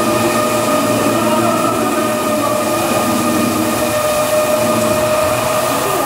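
Automatic carpet washing machine running steadily, its electric motors and scrubbing brush heads working a wet, foamy carpet on the conveyor. The sound is a continuous whine over even mechanical noise.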